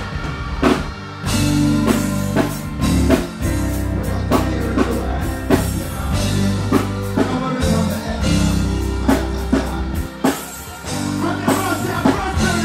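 Live reggae backing band playing on stage: drum kit keeping a steady beat over held bass notes and keyboards.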